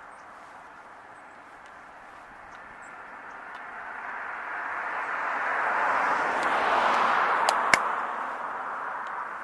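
A vehicle passing by: tyre and road noise swells over several seconds, peaks, then fades. Two sharp clicks come close together near the loudest point.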